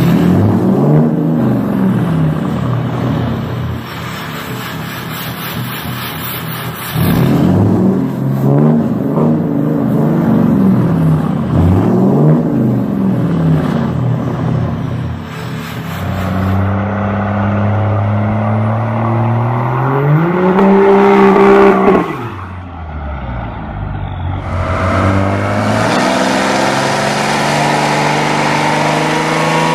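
Diesel engines of Ram pickup trucks. First the engine is revved in a series of short blips, each rising and falling in pitch over a second or two. Then a second truck on a dyno pulls up through the revs in a long rising climb that cuts off suddenly, and starts climbing again near the end.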